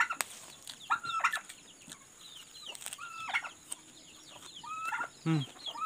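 Chickens calling, a short call repeated about every two seconds.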